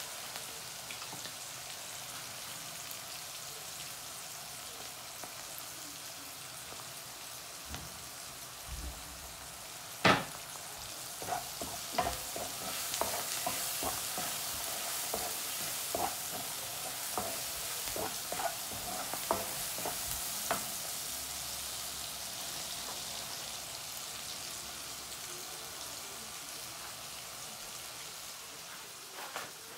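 Prawns and vegetables sizzling steadily in a nonstick wok, stirred with a wooden spoon. The spoon gives one sharp knock against the pan about a third of the way in, then a string of lighter knocks and scrapes over the next ten seconds or so.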